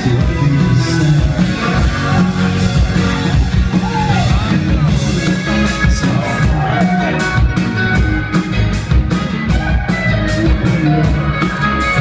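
A rock band playing live with electric guitar, bass and drums, heavy in the bass. The cymbal strokes come through more clearly from about halfway.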